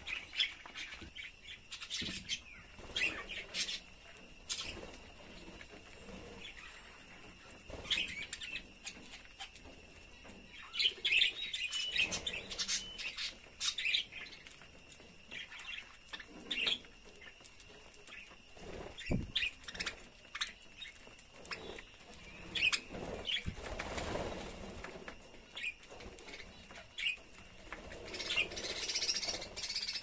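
A flock of budgerigars chirping and chattering, short high calls coming and going, busiest about a third of the way in and near the end.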